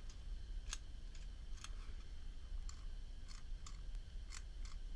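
Vintage Evans cigarette case/lighter's thumb lever and flip-top lid clicking, about nine short metal clicks at uneven intervals, as the freshly reassembled lighter action is worked open and shut with no flint fitted yet.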